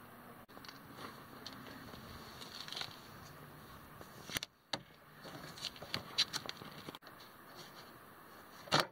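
Fingers handling the window motor's wiring and plastic plug connector: scattered small clicks and rustles, with a sharp click near the end.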